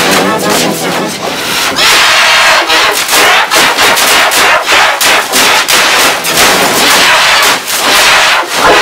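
Loud, harsh, distorted yelling with rapid banging strikes several times a second. It sets in abruptly about two seconds in.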